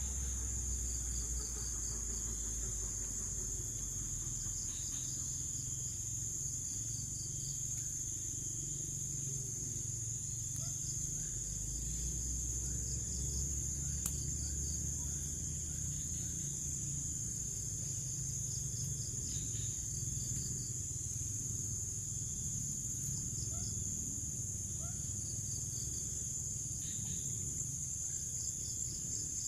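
Insects calling outdoors: a steady, high-pitched drone with short trains of chirps every few seconds, over a low rumble.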